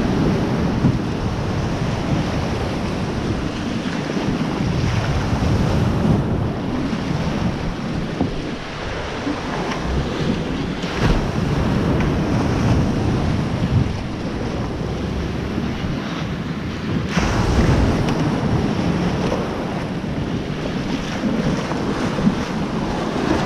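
Waves washing in the surf, with wind buffeting the microphone in a heavy, uneven roar.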